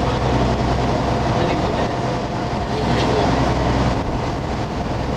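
Motor boat's engine running with a steady low drone over an even rushing noise.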